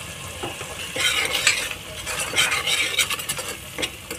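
A metal spoon stirring and scraping a thick tomato-onion masala with ground spices as it fries in oil in a pressure cooker, with sizzling and clicks of the spoon against the pot. The stirring picks up about a second in.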